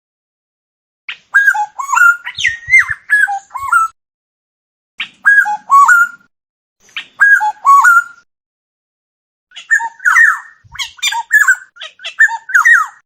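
Oriole calling: four phrases of quick fluty whistles mixed with scratchy notes, separated by short silences.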